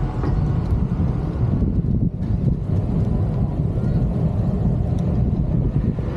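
Wind rumbling on the microphone of a camera moving along a city street, mixed with street traffic noise.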